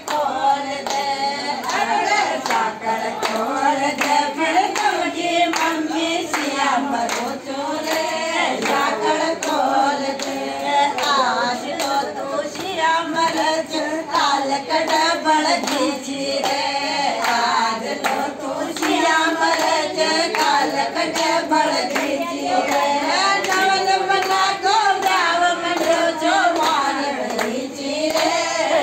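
A group of women singing a traditional wedding song together, with hand clapping in time.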